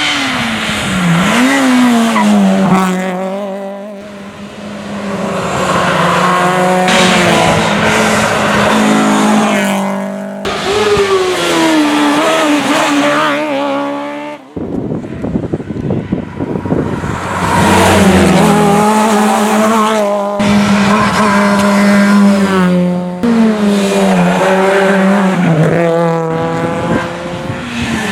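Rally cars driven hard at speed, engines revving up and dropping back through gear changes again and again, with tyre squeal. Several passes follow one another, with abrupt changes between them.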